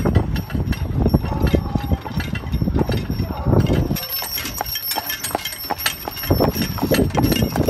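Clydesdale's hooves clip-clopping on an asphalt road as it pulls a carriage, with a low rumble under the hoofbeats that drops away about four seconds in.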